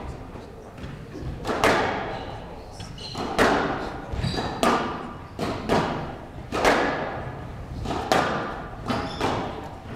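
Squash rally: about seven sharp hits of the ball off rackets and the front wall, about one a second, each echoing through the hall.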